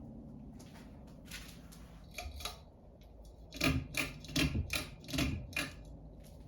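Harbor Breeze Asheville ceiling fan motor humming steadily, with a run of about six sharp clicks from about halfway through.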